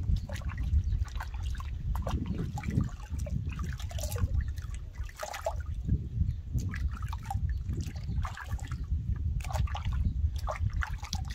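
Water splashing and trickling in a plastic tub as hands scoop water over a puppy and rub its wet coat, in many short, irregular splashes.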